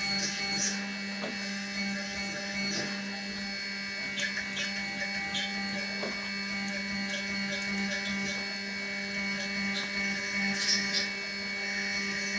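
Small desktop CNC router milling, its spindle and axis motors running with a steady hum and whine while the end mill cuts. Scattered short sharp ticks sound throughout.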